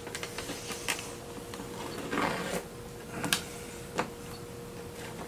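Hands handling an old RC model airplane's fuselage: a few light clicks and taps with a brief scraping rustle a little past two seconds in, over a faint steady hum.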